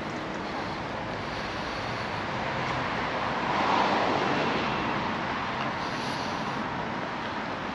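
A car passing on a wet road: tyre hiss swells to its loudest about four seconds in, then fades, over steady street background noise.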